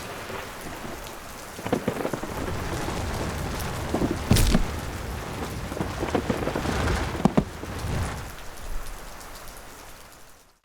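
Steady rain with thunder, with louder cracks of thunder about four seconds in and again about seven seconds in; the storm fades away near the end.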